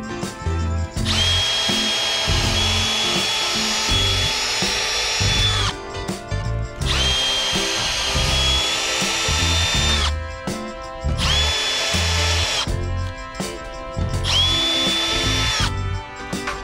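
Milwaukee cordless drill boring holes through small pieces of driftwood, four times. Each run spins up with a rising whine, holds steady, then stops. The first two runs last a few seconds each and the last two are shorter.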